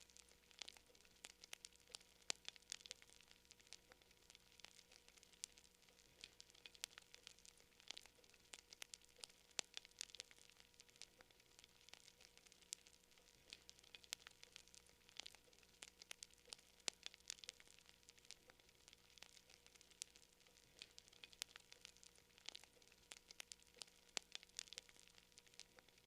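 Campfire crackling: frequent, irregular sharp pops and snaps over a soft hiss, with a faint steady hum underneath.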